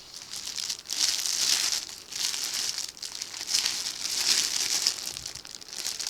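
Crinkly plastic packaging rustling and crumpling as a jacket is handled, in repeated swells roughly once a second.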